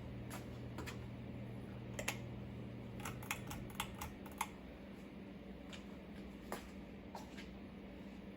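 Turn of the Century dual-mount ceiling fan coasting down after being switched off: a faint motor hum that fades away in the first few seconds, with scattered light clicks and ticks, a quick cluster of them near the middle.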